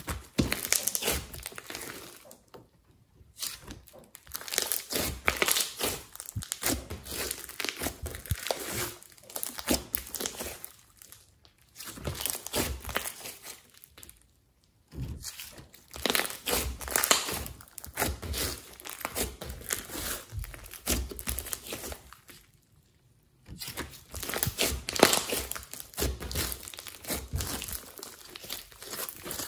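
Pink clay-and-glitter slime being stretched, pressed and kneaded by hand, giving dense runs of crackling clicks. The runs break off for about a second several times.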